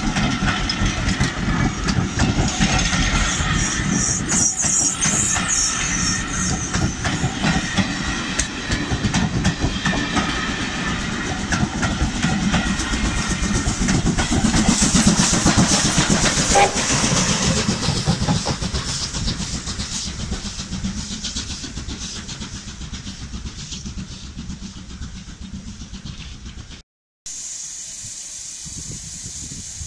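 Steam-hauled train of coaches hauled by an S160 locomotive rolling past, wheels clattering over the rail joints with some hiss of steam. It is loudest about halfway through, then fades as the train draws away. Near the end it cuts off to a much quieter background.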